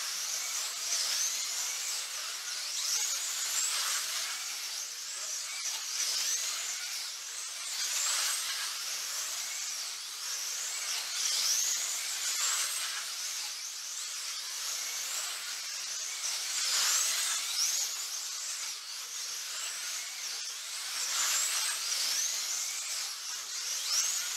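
Several GTP-class 1/24-scale electric slot cars racing round the track, their small motors giving a high whine that rises in pitch along the straights and drops off into the corners, over and over every few seconds as the cars lap.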